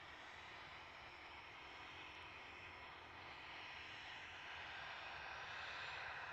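Faint aircraft engine noise, a steady hiss with a faint hum that swells a little near the end.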